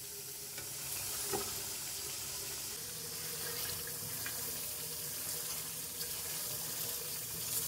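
Boiled eggs frying in a wok of oil and masala, the oil sizzling with a steady hiss. A faint tap about a second and a half in.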